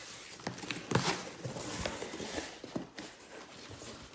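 A cardboard shipping box being opened and handled: irregular knocks, clicks and scrapes of cardboard with rustling, the sharpest knock about a second in.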